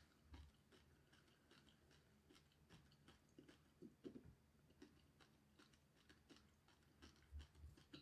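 Faint chewing of the Paqui One Chip Challenge black tortilla chip: soft, irregular crunches and mouth noises about every half second.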